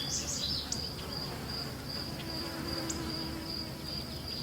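Crickets chirping in a steady, evenly pulsed high trill, with a few short bird chirps in the first second.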